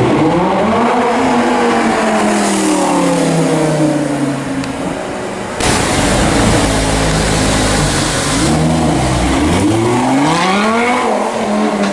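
Lamborghini Gallardo LP570-4 Performante's V10 revving and accelerating, its pitch climbing and then falling away several times. The sound breaks off abruptly about five and a half seconds in, and there is a sharp climb in revs near the end.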